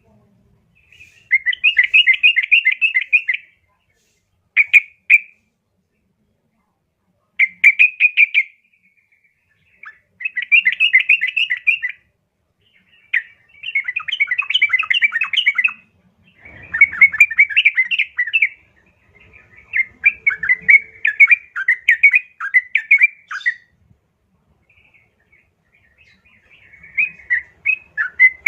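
Female yellow-vented bulbul calling to a male: bouts of quick chattering notes, each one to three seconds long, repeated about eight times with short pauses between.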